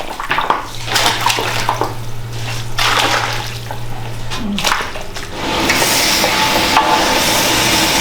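Water sloshing and splashing with metal pots and utensils clattering, over a low steady hum. About five and a half seconds in, a louder steady rushing noise starts and holds.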